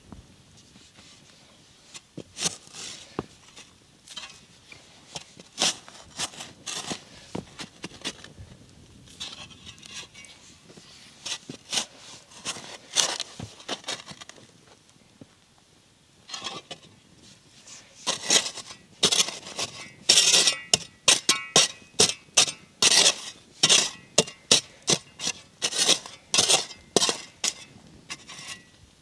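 Repeated sharp scrapes and clinks of hard objects, scattered at first, then a quick, regular run of strokes through the last ten seconds.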